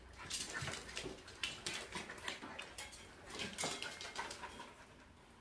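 Dogs playing: a puppy tussling with a dachshund and a Polish dog, with quiet dog sounds and many quick scuffs and clicks of paws on a wooden floor.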